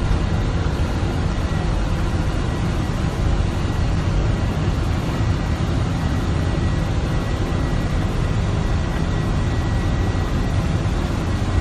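Boeing 747-400 cockpit noise with the engines running: a steady, loud rumble of engines and rushing air, with a faint high steady tone.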